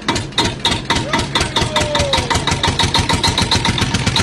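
A small engine running with a rapid, even train of knocks that speeds up slightly, and a faint falling whistle about a second in.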